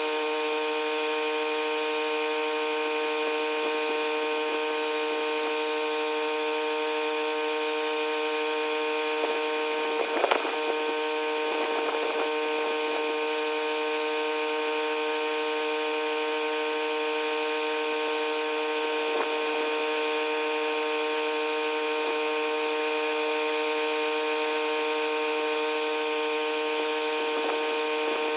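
Pressure washer running steadily: a constant machine tone with the hiss of the spray over it, briefly disturbed about ten seconds in.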